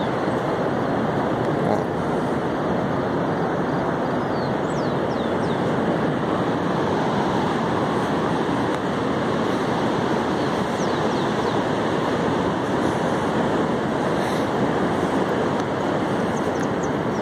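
Steady rush of ocean surf breaking on a sandy beach, at an even level throughout, with a few faint, short, high chirps now and then.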